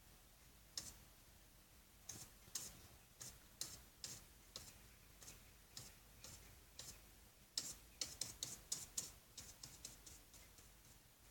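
Paintbrush loaded with thick acrylic paint dabbing on paper: faint, irregular short taps, coming quicker in a run of about eight near the eight-second mark.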